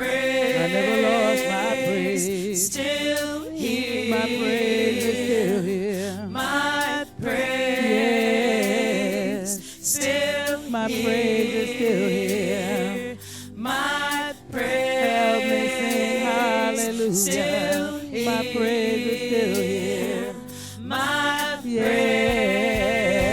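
Gospel choir singing, with long wavering held notes in phrases broken by short breaths.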